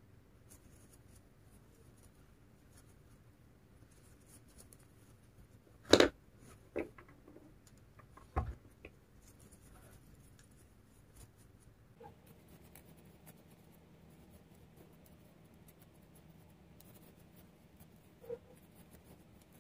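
Faint scratching and rubbing of thick twisted macramé cord as a crochet hook pulls it through single crochet stitches, with a few short knocks about six to eight and a half seconds in, the first the loudest.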